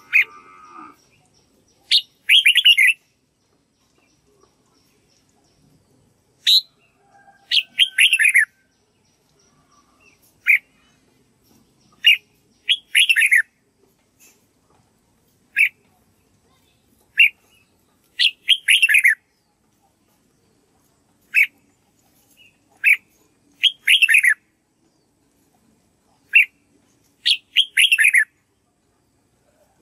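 Red-whiskered bulbul singing: short phrases repeated every couple of seconds, each a single clear note followed by a quick run of falling notes.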